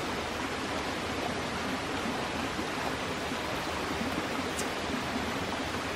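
Steady rushing of flowing water from a stream, an even noise with no rises or breaks.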